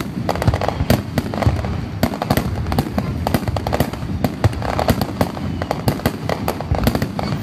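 Aerial firework shells bursting in a continuous barrage, several overlapping bangs a second.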